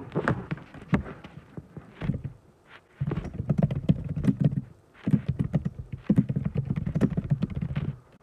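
Typing on a computer keyboard: scattered keystrokes at first, then two quick runs of keystrokes, the second stopping just before the end.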